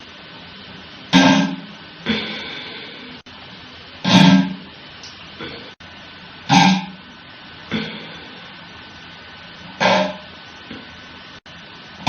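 Guitar music: six loud struck chords, spaced one to two seconds apart, each ringing out briefly.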